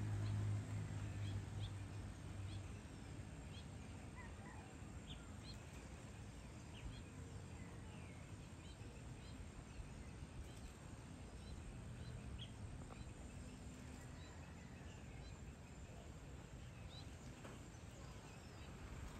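Faint ambience of scattered short bird chirps over a soft steady hiss, with a low hum during the first few seconds that then fades.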